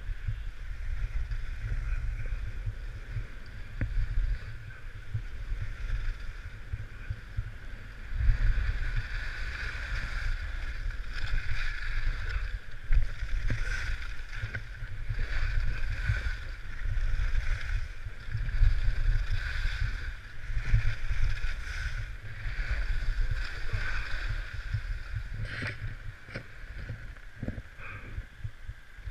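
Wind buffeting the camera microphone while sliding down a groomed ski slope. The hiss and scrape of edges carving packed snow swells and fades every couple of seconds, with a few short clicks near the end.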